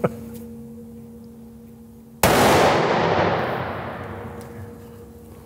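A single rifle shot from a Browning X-Bolt in .270 Winchester Short Magnum, about two seconds in, fired from a rest while the scope is being sighted in. The report rings through the indoor range and dies away slowly over the next few seconds.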